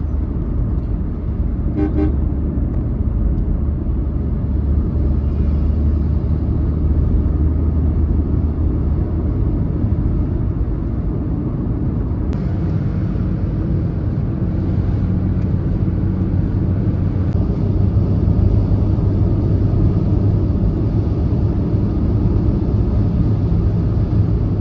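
Steady road and engine rumble of a car cruising on an expressway, with a vehicle horn tooting briefly about two seconds in.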